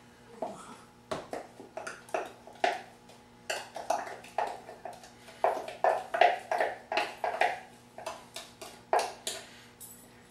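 A spatula scraping and knocking against a food processor bowl: a long irregular run of short taps and scrapes, several a second, as the pureed corn is scraped out into a saucepan.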